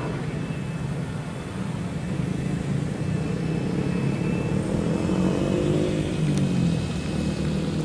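Electric RC airboat's motor and air propeller running steadily on the water, a low hum that swells for a few seconds in the middle as the boat passes close, then eases.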